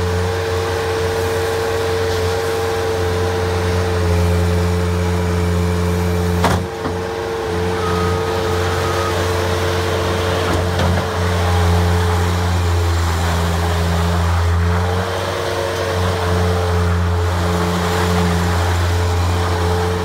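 Bobcat 763 skid steer loader's diesel engine running steadily under load, with a constant high whine over the engine hum that rises and falls slightly as the machine works. A single sharp knock about six and a half seconds in.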